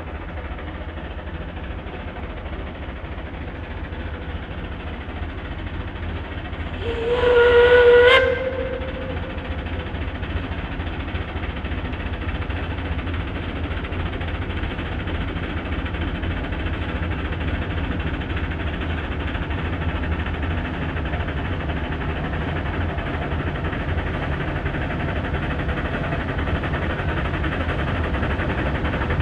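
A steam locomotive's whistle gives one blast about a second long, some seven seconds in: a single steady note that bends slightly upward as it cuts off. Under it runs the steady, rumbling running noise of the narrow-gauge steam train.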